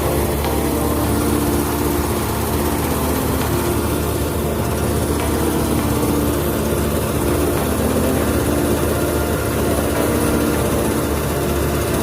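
Rice combine harvester running steadily, its engine a constant low hum with a faintly pulsing drone above it.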